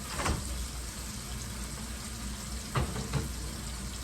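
Steak burgers frying in grease in a pan, a steady sizzle, with a couple of short knocks about three seconds in.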